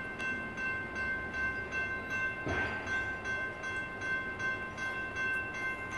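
General Signals Type 2 electronic crossing bell ringing in even, repeated strokes, the warning of an activated grade crossing as a train approaches. A brief whoosh passes about two and a half seconds in.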